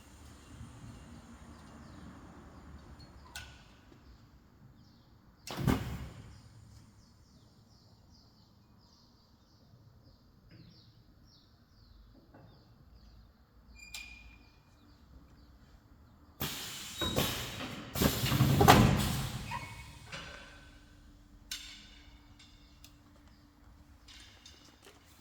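Urban AKS 3900 double-head PVC welding machine working: a short, sudden burst of noise about six seconds in and a longer, louder stretch of noise with clicks lasting about three seconds past the middle, with faint fast ticking in between.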